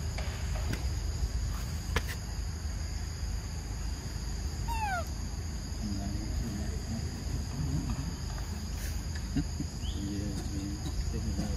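Outdoor ambience with a steady high-pitched whine over a low rumble. About five seconds in, an animal gives one short call of quickly falling notes. A few light clicks are scattered through.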